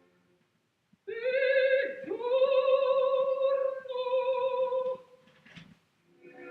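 A woman's voice singing three long held notes with a wide vibrato, the second scooping up into its pitch, after about a second of silence.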